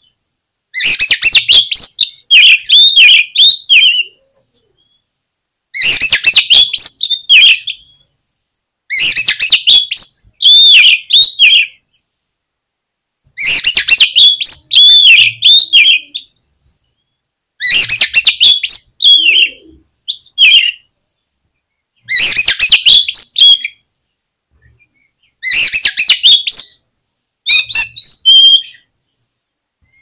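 Oriental magpie-robin (kacer) singing loud, rapid phrases of whistles and chattering notes. It comes in about seven bursts of two to three seconds each, with short silent gaps between them. This is the song of a fired-up male, played as a lure (pancingan) to provoke other magpie-robins into singing.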